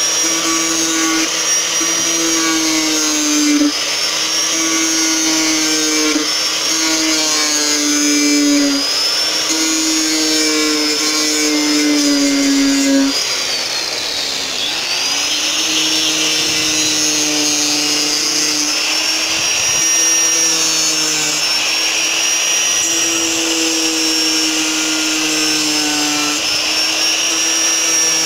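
Electric angle grinder with a sanding disc running continuously while sanding a wooden board, a steady high motor whine. Its pitch dips briefly about halfway through, then comes back up.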